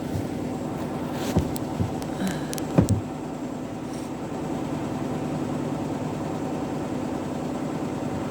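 Hotpoint washing machine in its first spin: the motor and drum running at a steady speed with a constant whine. A few short knocks come in the first three seconds.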